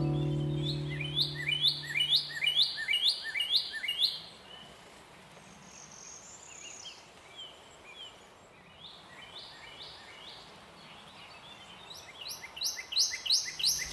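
Songbird singing: a fast series of short, repeated sweeping chirps, about three a second. The run stops about four seconds in, a few scattered chirps follow, and a louder run starts again near the end. The band's last low notes ring out and fade under the first chirps.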